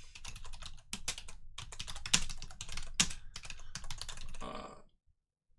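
Typing on a computer keyboard: a quick, irregular run of keystrokes that stops shortly before the end.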